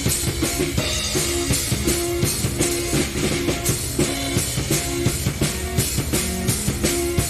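Keyboard and drum kit jamming in a prog-rock style: busy drumming with bass drum and snare under a repeated keyboard figure of held notes.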